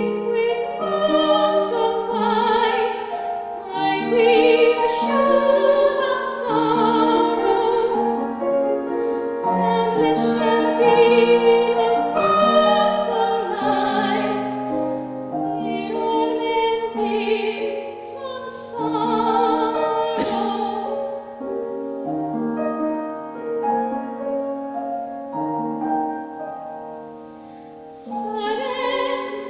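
Female classical singer performing an art song with vibrato over piano accompaniment, in a softer passage near the end before the voice enters again.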